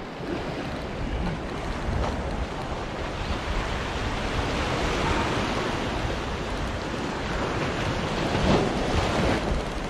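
Sea waves washing and surging, with wind buffeting the microphone: a steady rushing noise that swells a little about five and eight and a half seconds in.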